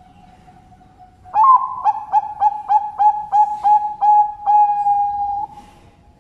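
Zebra dove (perkutut) singing: starting about a second in, a quick run of about eight short clipped coos, each dipping in pitch, then one longer held coo to finish.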